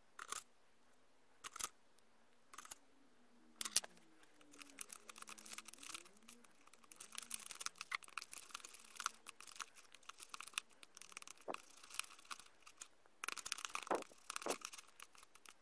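Small plastic stirrer scraping and tapping in the plastic compartments of a mould tray, mixing gummy mix: a few separate taps in the first four seconds, then quick, near-continuous scraping, with a burst of taps near the end.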